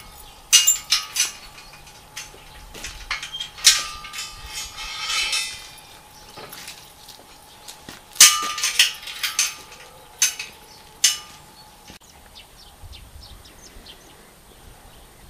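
Steel pallet fork tines, frame and securing chain clanking and rattling as they are handled, in several bursts of sharp metal clangs; it is quieter after about twelve seconds.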